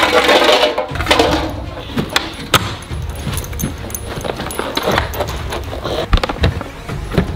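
Aluminium Coke cans and a red plastic Coca-Cola vending-machine toy knocking and clattering as they are handled, a string of short knocks, with background music.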